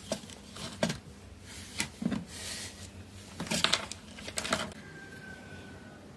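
A run of short, irregular knocks and clicks, about eight of them, loudest in a cluster around the middle, with a faint thin tone that falls slightly near the end.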